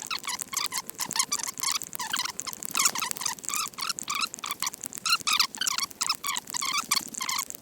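A chorus of small wild animals chirping: short, repeated high calls, several a second, overlapping throughout.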